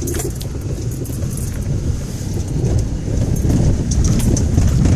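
Inside the cab of a Ford Raptor pickup driving slowly down a rocky off-road trail: a steady low rumble of tyres and suspension with frequent small rattles and knocks, getting louder near the end.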